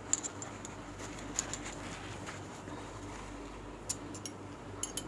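Soft rustle of a paper tissue rubbed over a metal spoon and fork, with a few light scattered clicks, over a low steady hum.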